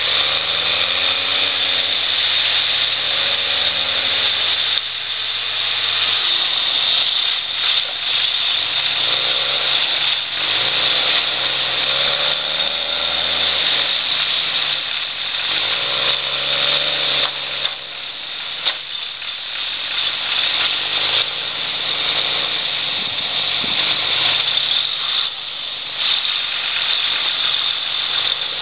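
John Deere grapple skidders' diesel engines working hard under load, revving up and dropping back again and again while one skidder pulls the other, stuck in mud, up a track. A few sharp knocks are heard among the engine noise.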